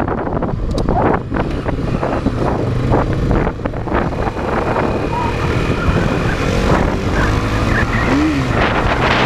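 Motorcycle riding along at a steady pace: its engine running under a loud, gusty rumble of wind on the camera microphone.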